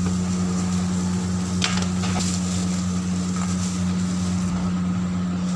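Steady low electric hum, with a few faint clicks.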